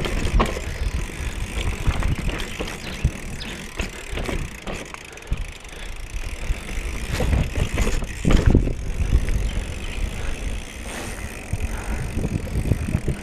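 Mountain bike riding a dirt trail: tyres rolling over dirt and the bike rattling and knocking over bumps, with a few harder knocks, the loudest about eight seconds in. Wind rushes on the camera microphone.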